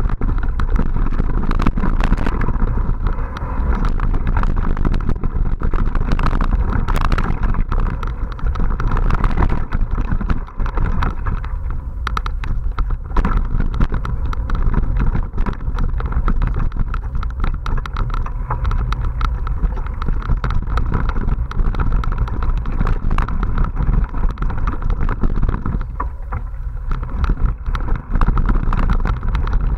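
Mountain bike ridden over a rough dirt singletrack, heard from a camera riding along with it: a constant low rumble of wind and ground on the microphone, with dense rattling and knocking of the bike and camera mount over the bumps.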